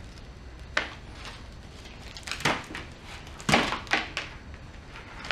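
Plastic Ziploc bag crinkling and crackling in several short rustles as an epoxy-glued strip of Velcro and brush bristles is handled and peeled off it.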